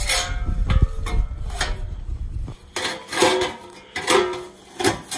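Sheet-steel replacement wheel-well panel being handled and set against the car body, clanking and clinking several times with brief metallic ringing.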